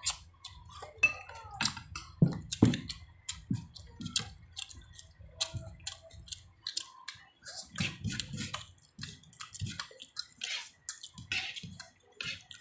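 Close-up eating sounds: chewing and lip smacks as a string of quick wet clicks, with fingers working rice on a plastic plate. A couple of louder knocks come about two to three seconds in, from a spoon against the plastic food tub.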